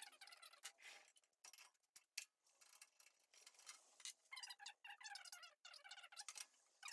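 Near silence, with a few faint light knocks and clicks as a circular saw blade is changed on a table saw.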